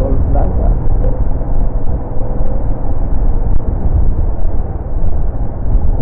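Wind blast buffeting the microphone of a rider on a moving motorcycle: a loud, dense low rumble with the bike's running noise underneath. The blast comes through this strongly because the rider's helmet visor is broken.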